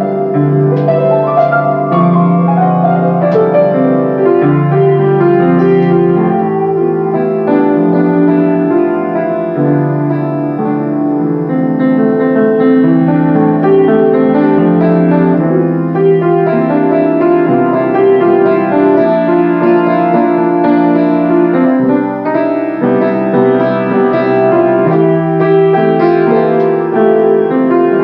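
Grand piano played solo: a flowing melody over held chords, sounding without a break.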